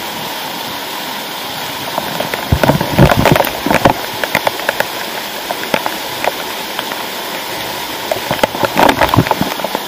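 Waterfall streams pouring into a rock pool, a steady rush of falling water. Sharp bursts of close splattering come in two spells, about two and a half seconds in and again near the end.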